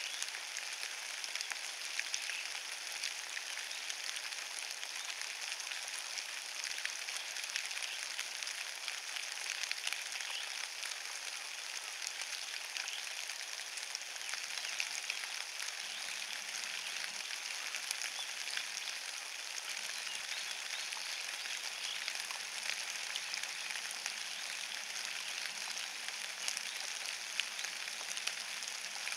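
Steady rain falling on wet fallen leaves on a forest floor: an even hiss dotted with many small drop ticks.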